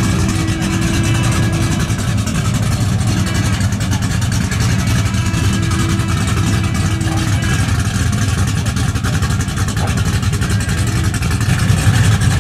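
Chevrolet Monte Carlo's engine running at a steady low idle as the car backs down a car-hauler's loading ramps.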